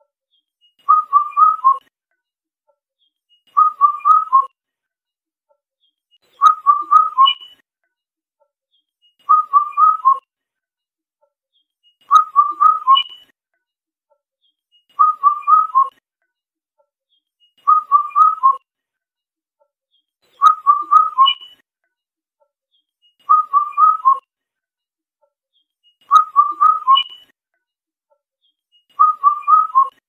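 Indian cuckoo calling its four-note whistled song, the last note lower, repeated about every three seconds.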